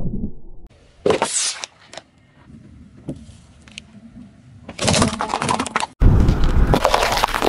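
Car tyre rolling onto a whole coconut: a loud crack about a second in, a few small clicks, then a second loud crunch around five seconds as the husk and shell give way. Near the end a loud, continuous rough noise takes over.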